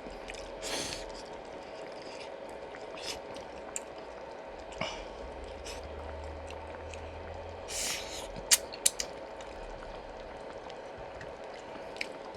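Close-miked eating of pork-bone potato soup (gamjatang): a few short wet slurping and chewing noises, with two sharp clicks a little past the middle, over a steady faint hum.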